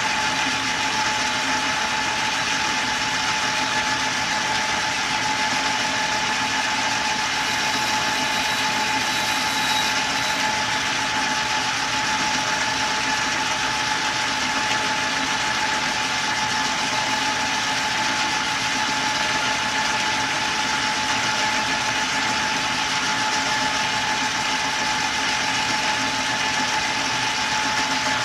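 Small metal lathe running at a steady speed with a steady whine, turning a brass crown wheel blank while a light cut is taken.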